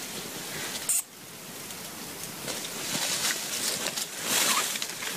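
Rustling and crackling noise without any pitched sound, with a sharp click about a second in and a louder stretch of rustling a little after four seconds.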